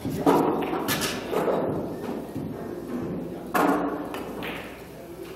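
Pool balls clacking: a few sharp knocks of cue and balls striking, echoing in the hall, the loudest at the start and another about three and a half seconds in.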